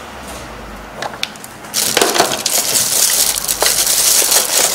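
A clear plastic bag crinkling and crackling as it is grabbed and handled, starting just before two seconds in after a few light clicks of items being moved.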